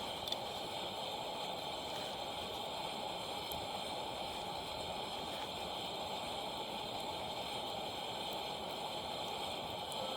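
Steady rushing noise, with one short click about a third of a second in.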